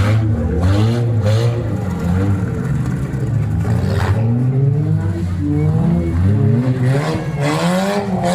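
Demolition derby car engines revving up and dropping back over and over, with a sharp knock of an impact about four seconds in and a long rev climbing near the end.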